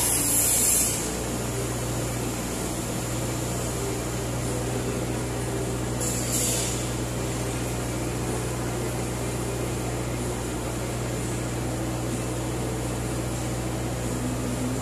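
Komatsu PC78UU mini excavator's diesel engine idling steadily, with two short hissing bursts, one at the very start and one about six seconds in.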